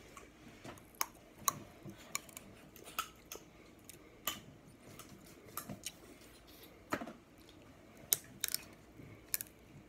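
Snow crab leg shells cracking and clicking sharply and irregularly as they are bitten, with chewing and sucking at the meat.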